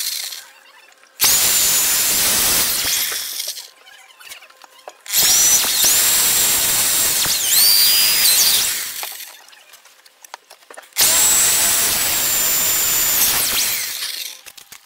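Electric drill boring into a wooden staff head in three runs of a few seconds each with short pauses between. Its motor whine dips and rises in pitch during the runs.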